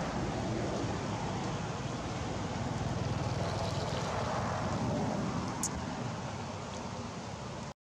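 Steady outdoor rushing noise with a low rumble, with no distinct event in it. It cuts off abruptly just before the end.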